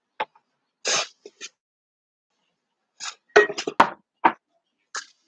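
Kitchen utensils and cookware clinking and knocking in short, separate strikes, with a quick cluster of several about three and a half seconds in.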